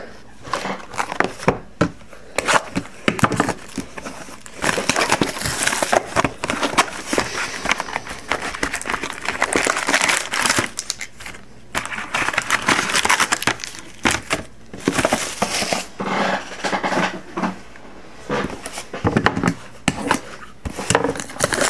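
Trading-card packs' wrappers crinkling and rustling in bursts with many small crackles as packs are handled and stacked.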